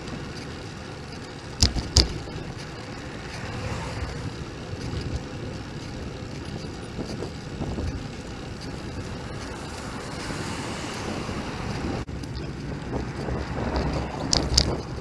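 Wind and road noise picked up by a bicycle-mounted camera while riding, with two sharp knocks about two seconds in and two more near the end.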